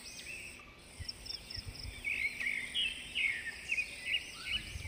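Forest birds and insects chirping: many short, high chirps overlapping unevenly, busiest in the middle. A few faint low thuds lie underneath.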